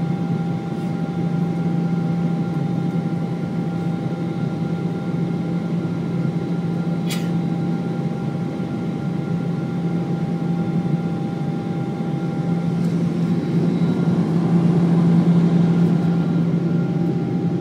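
Jet airliner cabin noise during takeoff: the steady rush of the engines and airflow with a low hum, growing louder about thirteen seconds in. A single brief click about seven seconds in.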